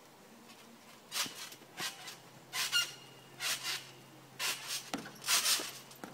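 Trampoline springs creaking and squeaking in a regular rhythm, about one stretch per bounce, roughly once a second, as a jumper bounces higher on the mat; the last few are longer.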